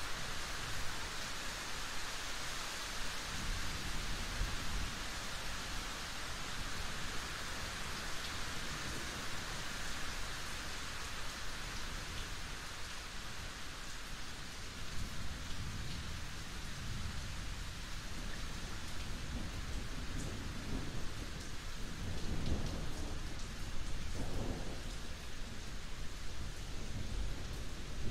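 Steady rain with low rolls of thunder under it: a faint rumble a few seconds in, then stronger rumbling from just past the middle, loudest about three-quarters of the way through.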